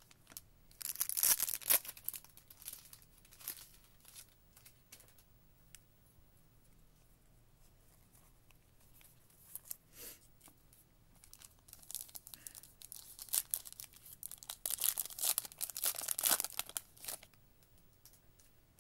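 A 2023 Prizm football card pack's wrapper being torn open and crinkled by hand: a short burst about a second in, then a longer stretch of tearing and crinkling in the second half, with light clicks of cards being handled in between.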